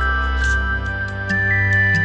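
Background music: a calm, new-age style piece with slow held melody notes over a sustained bass, with light ticks on the beat.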